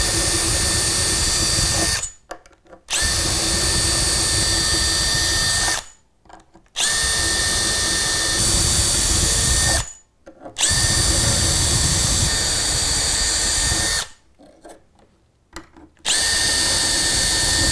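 Makita 18V cordless drill with a 2 mm bit drilling holes through a point-motor jig into the layout baseboard. It runs at a steady high whine in five runs of three to four seconds each, with short pauses between holes.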